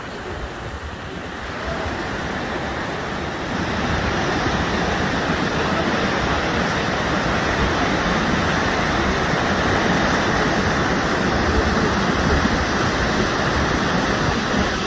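Muddy monsoon flash-flood water rushing across open ground, a steady noise of fast-flowing water that grows louder a few seconds in.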